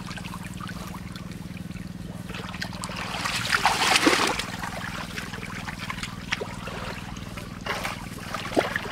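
Shallow ditch water splashing and trickling as fish are caught by hand, with a louder burst of splashing about three to four seconds in and small scattered splashes after it. A steady low hum runs underneath.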